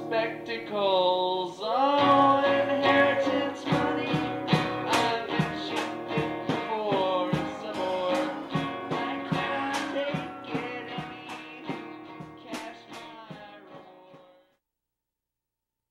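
A song with guitar and singing, fading out gradually and stopping dead about a second before the end.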